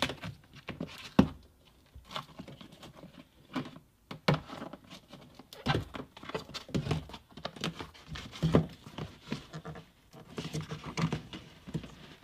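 Foam vapour barrier sheet being peeled off a car's inner door panel: irregular crackling and rustling as it pulls away from its adhesive, with a few sharper taps, the loudest about a second in.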